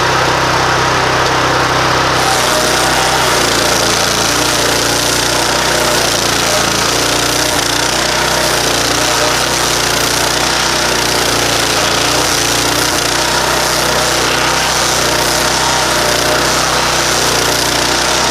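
15 hp Loncin-engined stump grinder running, its nine-tooth cutting wheel grinding into a tree stump: a steady engine drone under a loud, harsh grinding hiss that grows brighter about two seconds in.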